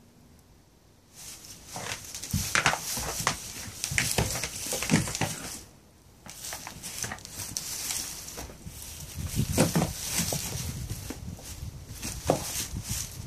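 Horned goats scuffling and butting in a straw-bedded stall: rustling straw, hoof steps and scattered knocks. It starts after a quiet first second, with a brief lull about six seconds in.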